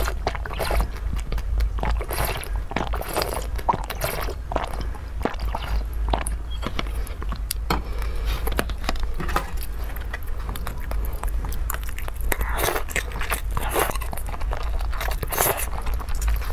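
Close-miked eating sounds: chewing with wet mouth clicks and smacks, and a few louder, longer squishy bursts about twelve and fifteen seconds in.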